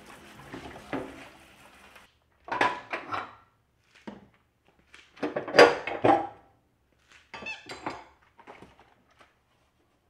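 Metal gas-burner caps and burner heads clinking and clattering as they are lifted off and set down on a stainless steel stovetop, in several short bursts with the loudest clatter about halfway through. A faint spray of running water fades out in the first two seconds.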